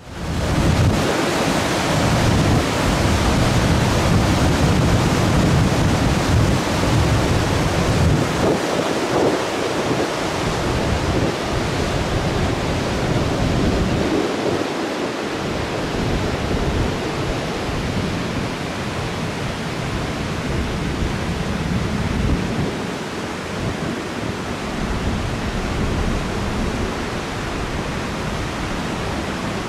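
Wind buffeting the microphone in uneven gusts, a low rumble that comes and goes, over a steady loud rushing hiss.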